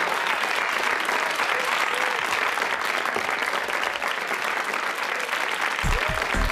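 Audience applauding, a dense steady clapping. Low notes of music come in near the end.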